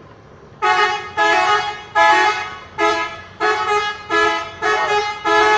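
Bus telolet horn, a multi-tone musical horn, pressed in a quick string of about eight short blasts starting about half a second in. Each blast steps through a few notes.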